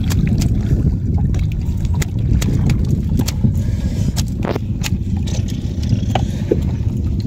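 Scattered sharp clicks and taps of live giant freshwater prawns on the wet wooden floor of a fishing boat, over a steady low rumble.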